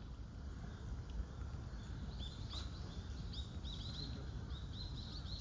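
Small birds chirping: a quick run of short, high chirps that starts about two seconds in, over a steady low rumble.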